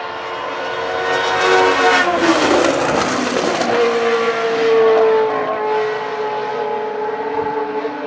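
Ford Cosworth DFV V8 of a 1980 Ligier JS11 Formula 1 car running past at speed. It grows louder as it approaches, is loudest about two to three seconds in, then pulls away with the engine still at high revs.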